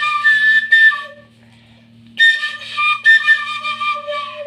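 Background music: a flute playing a melody in two phrases with a short pause between, over a steady low hum.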